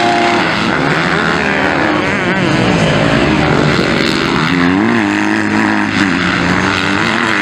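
Several MX2 motocross bikes (250cc four-stroke dirt bikes) racing on the track, their engines revving and easing off as they clear jumps and accelerate out of turns, with a rise in pitch about five seconds in.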